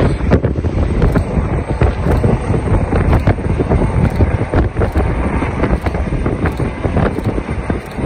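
Twin-turbine Eurocopter EC135 rescue helicopter running at full rotor speed on a helipad, powering up for takeoff: a steady, loud rotor and turbine noise, heavily mixed with wind buffeting on the microphone.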